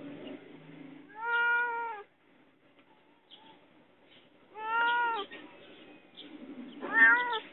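A domestic cat shut in a cage meowing for help: three long, loud meows about three seconds apart, each arching slightly in pitch.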